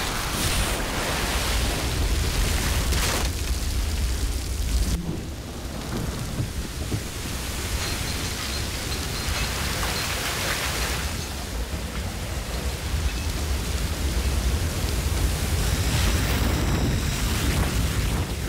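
Oil well blowout: oil and gas rushing out of the well under great pressure, a steady heavy rush with a deep rumble and spray falling like rain. It eases briefly about five seconds in.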